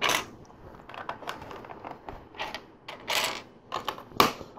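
Plastic LEGO bricks clicking and clattering as they are handled and pressed onto a LEGO plate: a string of irregular sharp clicks, the loudest about three and four seconds in.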